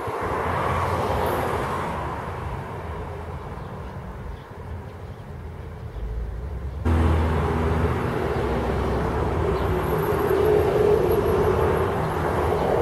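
Steady outdoor background noise, a low rumble with hiss, which jumps suddenly louder about seven seconds in.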